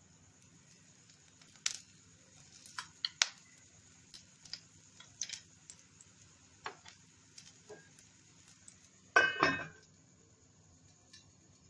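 A metal spoon clinking and tapping lightly against a nonstick frying pan, then a stainless-steel lid set down on the pan about nine seconds in with a loud double clang that rings briefly.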